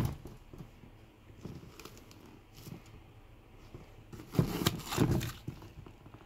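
Hands handling a sneaker and its packing paper, rustling and scraping: a few faint rustles, then a louder burst of rustling about four and a half seconds in.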